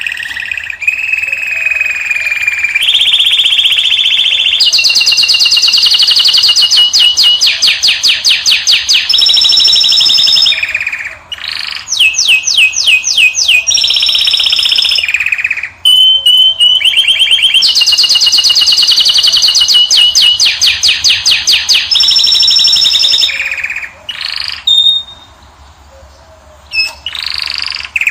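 Caged finch singing a loud, continuous song of fast trills and long rolls of rapidly repeated notes, broken by short pauses and a longer lull near the end.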